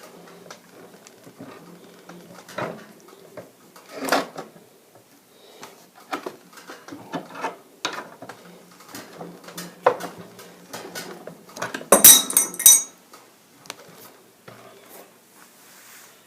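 A hand tap cutting threads inside a lead water pipe: irregular metallic clicks, scrapes and knocks as the tool is worked, with a bright clatter of ringing metal about twelve seconds in.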